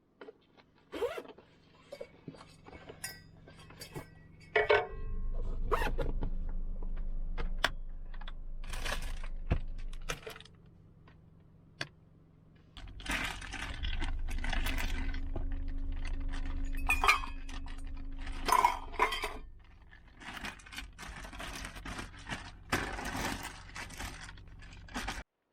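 Metal camp cookware and utensils being handled: repeated clinks, knocks and scrapes. A low steady rumble runs underneath for much of the time, stopping for a couple of seconds near the middle.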